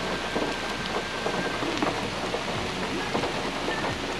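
Heavy rain pouring steadily, with scattered close drops tapping.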